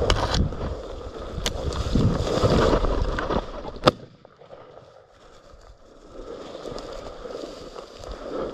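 A single shotgun shot, one sharp crack about four seconds in, after a few seconds of rustling through cover.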